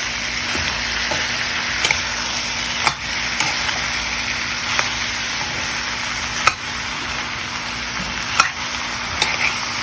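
Spiced chickpeas frying in oil in a pan with a steady sizzle, stirred with a spatula that knocks against the pan in a handful of sharp clicks.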